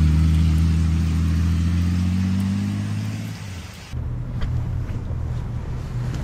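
Honda Gold Wing touring motorcycle's flat-six engine pulling away and fading into the distance, with the hiss of rain. About four seconds in it cuts to a low rumble and the rustle of cloth over the microphone.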